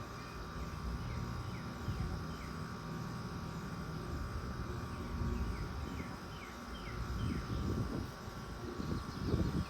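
Central air conditioner condensing unit running outdoors: a steady low hum and fan noise with a faint steady whine, while short falling chirps repeat. A few low thumps come in near the end.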